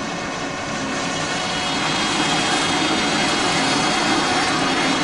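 Metal lathe running, its workpiece spinning dry against an ungreased dead center. The sound builds over the first couple of seconds, then holds steady; the dry friction is heating the center until its tip welds to the work.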